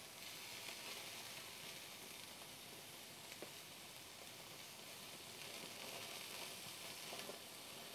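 Thick Denver cut of beef sizzling faintly as it sears over a gas grill's infrared sear burner, a steady hiss with an occasional faint tick.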